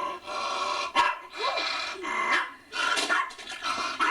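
A dog barking several times in quick succession.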